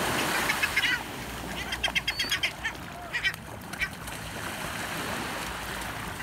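Seabirds, likely gulls among a flock of brown pelicans, calling in quick runs of short notes, about five a second, loudest around two seconds in, over the steady wash of small waves breaking in the shallows.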